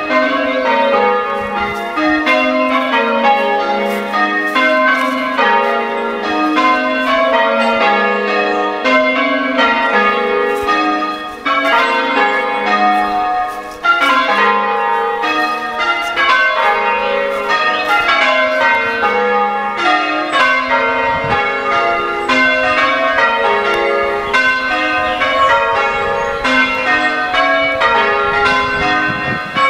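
A ring of six church tower bells being change-rung, the bells striking one after another in a steady, evenly paced sequence.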